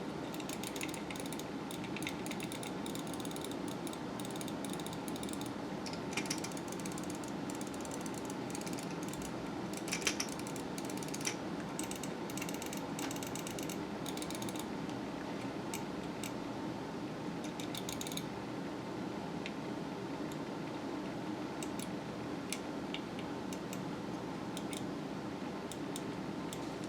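Mouse button microswitch being clicked over and over to work freshly applied isopropyl alcohol into it, a cleaning fix for a right click that lets go while held. The clicks come quick and dense for the first half and grow sparse later, over a steady low hum.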